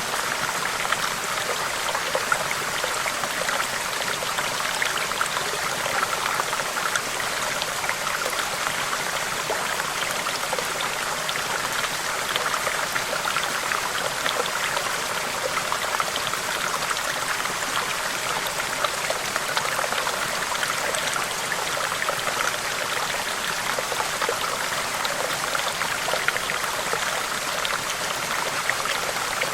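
Running water, a steady stream-like flow with a dense patter of small splashes and trickles, unchanging throughout.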